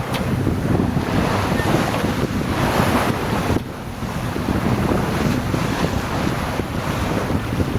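Wind buffeting the microphone over the rush and splash of water along the hull of a sailing yacht under way. The sound swells and eases, then drops suddenly about three and a half seconds in.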